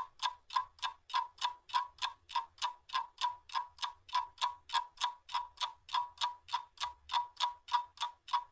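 Clock-ticking sound effect: an even, rapid tick about three to four times a second, with dead silence between the ticks.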